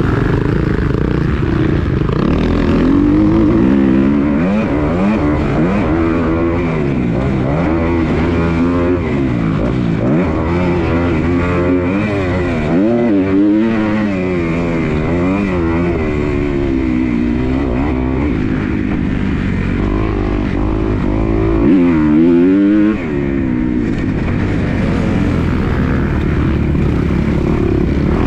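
Motocross dirt bike engine revving up and falling back again and again as the throttle is worked around the track, the pitch climbing and dropping many times.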